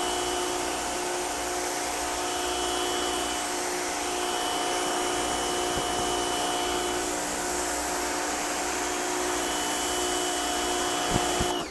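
Rock & Rocker electric pressure washer running under load: a steady hiss of the water jet from the 40-degree tip hitting the wall, over the steady whine of the pump motor. Spray and motor cut off suddenly near the end.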